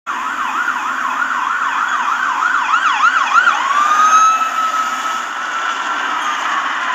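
Police car siren passing, first in a fast up-and-down yelp, then switching about halfway through to a slow wail that holds its pitch and sinks slowly near the end.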